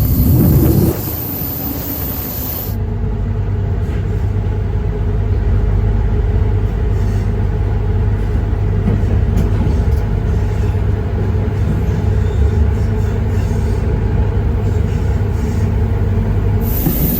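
Train running, heard from on board: a steady low rumble and hum that settles in about three seconds in, after a louder, shifting stretch at the start.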